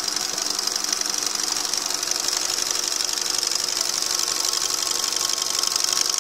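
Lathe running and belt-driving a rebuilt Lucas K2F magneto on a test rig: a steady mechanical run with a fast, even ticking and a high hiss.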